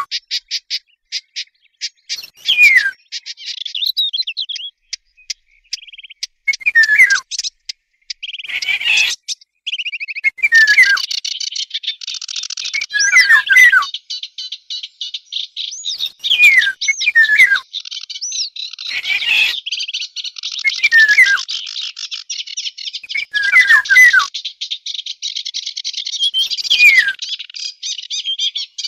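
Bird-call lure recording that mixes Eurasian golden oriole song with the calls of warblers known in Arabic as fig birds. Loud whistled phrases, each sliding downward, come every two to three seconds. Under them runs a fast high chattering and rattling that becomes continuous from about a third of the way in.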